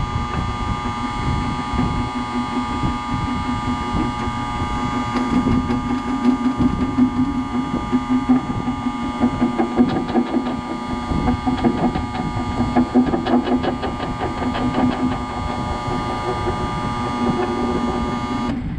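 Electric boat lift motor and gearbox running steadily with a humming drone, winding in the steel cable to raise the boat. Right at the end it cuts off suddenly as the lift reaches its upper limit switch.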